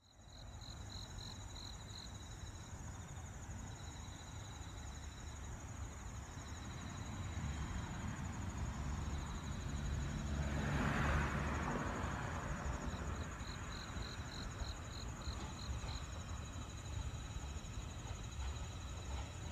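Crickets chirping steadily in a high, pulsing trill. Under them runs the low rumble of a train on the tracks, which swells with a rush of noise about halfway through.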